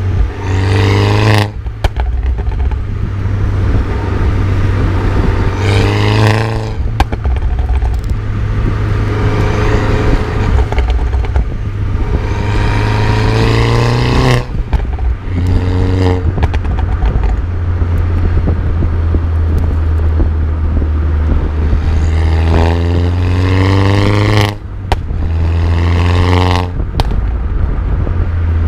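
2012 Mini John Cooper Works (R56) turbocharged four-cylinder breathing through a Scorpion decat downpipe, accelerating hard: the revs climb and fall sharply at each gear change, about five times. Short sharp pops sound from the exhaust as the revs drop.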